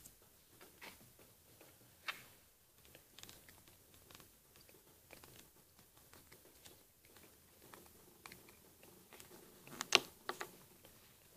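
Hands handling a small electric motor's white plastic parts close to the microphone: scattered light taps and rustles, with a sharp cluster of plastic clicks near the end.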